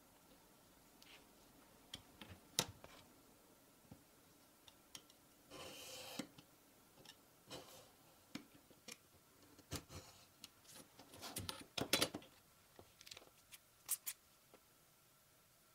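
Handling and cutting a thin sheet on a cutting mat: scattered light taps and rustles, a short scraping stroke of a utility knife along a steel ruler, and sharper taps in clusters toward the end.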